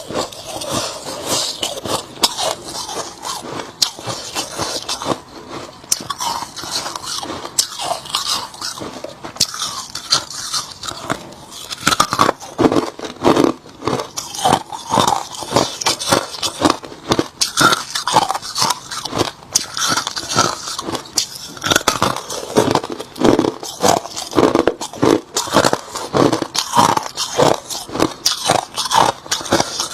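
A person biting and chewing hard crushed ice: a fast, continuous run of crisp crunches that grows louder about twelve seconds in.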